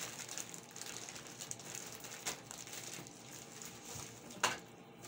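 A plastic courier pouch rustling and crinkling as hands handle it and pull a small box out of it, with a sharp click about four and a half seconds in.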